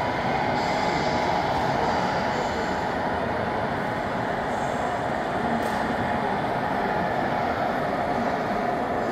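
Radio-controlled model semi trucks running across a carpeted hall floor: a steady vehicle-like drone and hum mixed with the hall's background din, even in level throughout.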